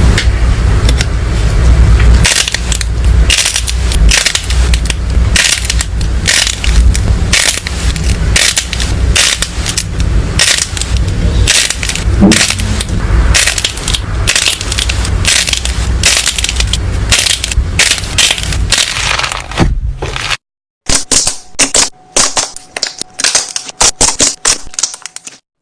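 Crunchy slime being squished and pressed, giving a dense run of crackles and pops, with a short break near the end.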